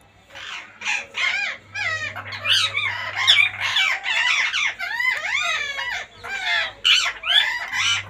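Rose-ringed parakeets calling: a rapid run of short calls whose pitch swoops up and down, following one another with barely a pause.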